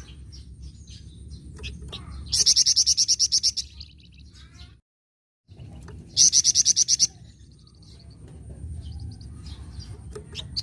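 A flamboyan songbird giving two loud, rapid trills of evenly repeated high notes, about ten a second and each lasting about a second, with fainter chirps between them. The sound drops out for half a second between the two trills.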